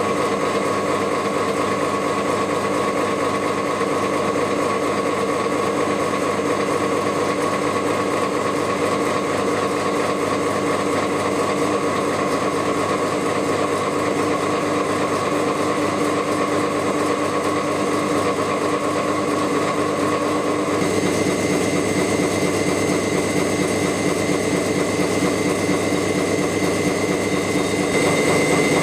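Machinery running steadily, a hum with several steady tones over a fast fine rattle. The sound changes abruptly about 21 seconds in and again near the end.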